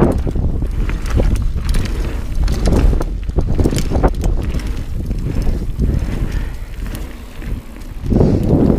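Dartmoor Primal 29er hardtail mountain bike descending a dirt trail at speed: tyres rolling on packed dirt and leaves, with frequent knocks and rattles from the bike over bumps and wind rumbling on the microphone. A louder rush of noise comes in near the end.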